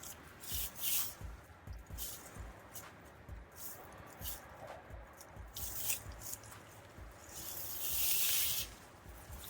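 Digging in garden soil: short scrapes and crunches of dirt come one after another, with soft low thumps, and a longer, louder rush of soil about eight seconds in.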